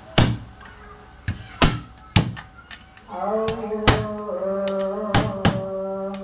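Sharp metal clinks and knocks of a socket wrench being handled on the bolts and metal housing of a Stihl 440 chainsaw, about seven at uneven intervals. From about three seconds in, a steady held musical tone with overtones sounds beneath them.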